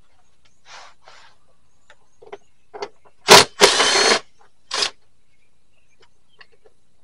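Work noise from taking apart a pickup's door: a few light clicks, a sharp knock about three seconds in, then a harsh rattling burst of about half a second and a shorter one a second later.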